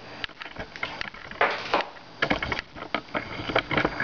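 Camera tripod being moved and handled: irregular clicks and knocks, with a short scrape about a second and a half in.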